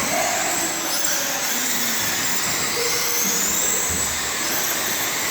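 A pack of off-road RC cars racing around the oval, their motors whining steadily with one high whine rising about halfway through.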